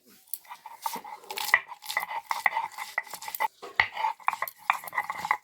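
Spices being ground by hand on a grinding stone: a fast, irregular run of stone knocking and scraping on stone.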